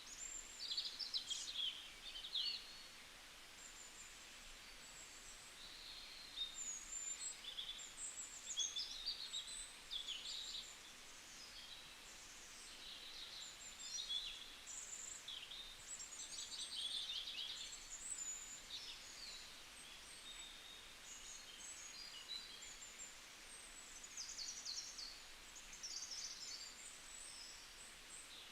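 Several songbirds calling and singing: a busy mix of short chirps, high trills and rapid stuttering phrases, over a faint steady hiss.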